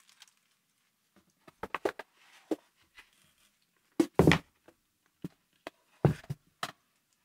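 Edifier S350DB bookshelf speaker being handled and set down on a table: a few light clicks and knocks, then a heavy thump about four seconds in as it lands, and more knocks about six seconds in as it is shifted into place.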